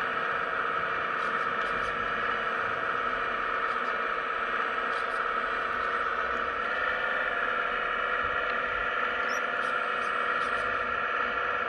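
Hydraulic pump of a 1:15-scale RC Hitachi ZX135US hydraulic excavator running with a steady whine while the boom and bucket dig, the whine shifting a little about two-thirds of the way through. Faint light ticks sound over it now and then.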